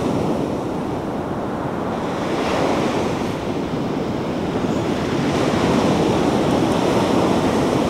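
Ocean surf breaking on a sandy beach: a steady rushing wash that swells as each set of waves comes in, a little louder in the second half.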